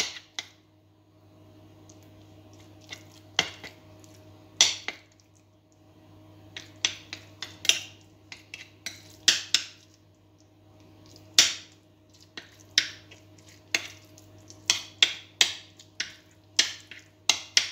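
Metal spoon tapping and clinking against a ceramic baking dish while spreading béchamel sauce over spinach: irregular sharp clicks, sparse at first and more frequent in the second half. A steady low hum runs underneath.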